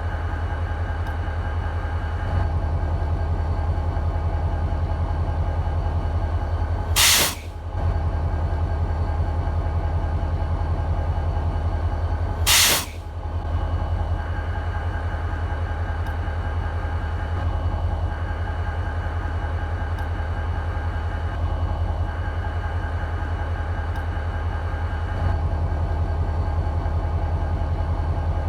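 BNSF SD40-2 locomotive's 16-cylinder two-stroke EMD 645 diesel idling steadily with a deep, even rumble. Twice, about 7 and 12 seconds in, a short sharp burst of air hiss from the locomotive's air system cuts through.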